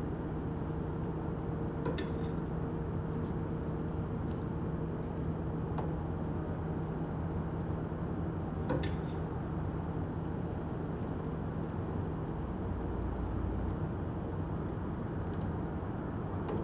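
Harbour ambience: a steady low mechanical rumble and hum, with a few sharp clicks or knocks a few seconds apart. The lower hum tone drops out about three-quarters of the way through.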